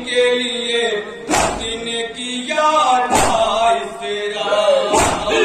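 Mourners chanting a noha lament, led by singing voices, with a loud collective slap of chest-beating matam in unison about every two seconds: three strikes.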